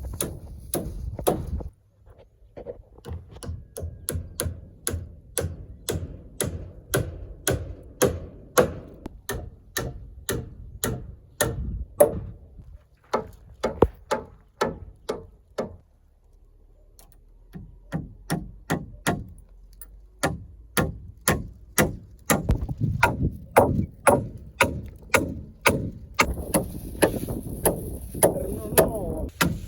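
Hammering on a building site: a long run of sharp, irregular hammer blows, about one to two a second, with a pause of a few seconds about halfway through.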